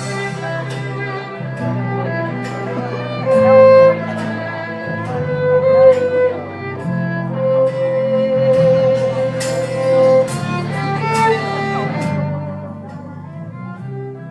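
Instrumental wedding music: a sustained melody line over a steady low accompaniment, growing softer near the end.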